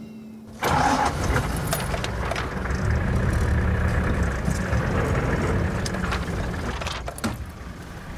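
A vehicle engine starts suddenly about half a second in and keeps running steadily.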